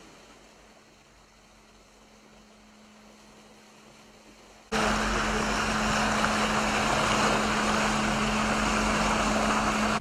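Noise on board a ship under way. At first it is a faint steady hiss with a low hum. About five seconds in it jumps abruptly to a loud, steady rush of wind and sea water, with the same steady low hum underneath.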